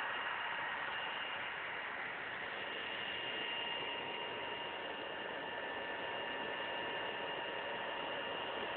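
Alienware M17x laptop's cooling fan running steadily: an even airy rush with a few thin, steady whining tones on top.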